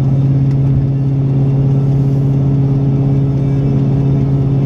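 2015 Mustang GT's 5.0 L Coyote V8 with Stainless Works long-tube headers, X-pipe and exhaust, heard inside the cabin while cruising steadily at about 65 mph: a steady low exhaust drone over road noise.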